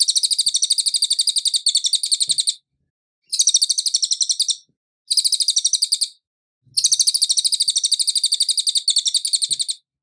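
Cililin songbird singing: high, rapid trills of quickly repeated notes in four long phrases, split by short pauses.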